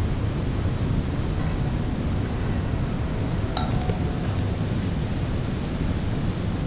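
Wind buffeting the microphone with a steady low rumble. About three and a half seconds in there is a single short metallic clink that rings briefly.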